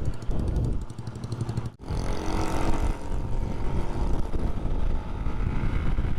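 Motorcycle running under way, a steady engine rumble mixed with road and wind noise. The sound drops out for an instant just before two seconds in.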